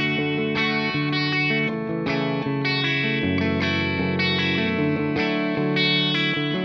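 Guitar strumming open-string chord voicings, with single picked notes mixed into the strumming pattern and the strings left ringing between strokes; the chords change partway through.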